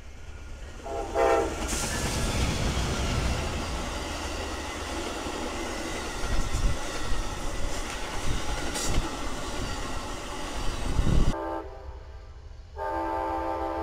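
A train passing close by: a short horn blast about a second in, then a steady roar of wheels and cars on the rails. The roar cuts off abruptly, and near the end a locomotive horn sounds a steady chord.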